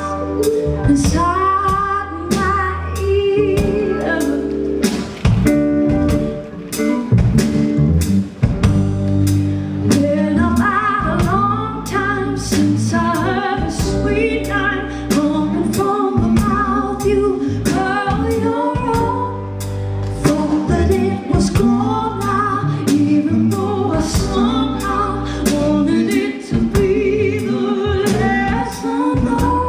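Live soul-jazz band performance: a woman sings lead over electric guitar, a Nord Stage keyboard, bass guitar and a drum kit keeping a steady beat.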